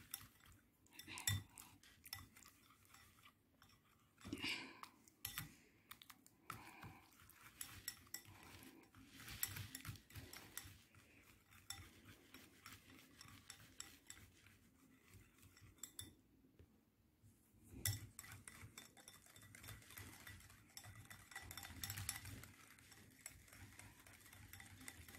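Wire balloon whisk beating a thick, creamy mixture in a glass bowl: faint, rapid clicking and scraping of the wires against the glass, with a short pause about sixteen seconds in.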